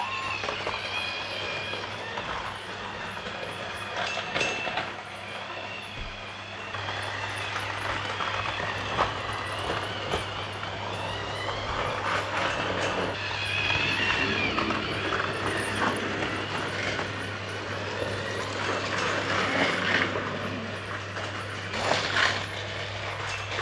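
Motorized toy trains running on plastic track: a steady motor hum that gets louder about seven seconds in, with scattered clicks and wavering higher tones over it.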